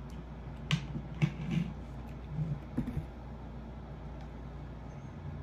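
A person swallowing pills with a drink of water: a few small clicks and soft gulping sounds in the first three seconds, then only a steady low hum.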